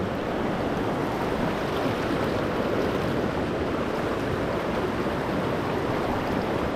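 Shallow rocky river rushing over riffles close by, a steady, unbroken rush of water.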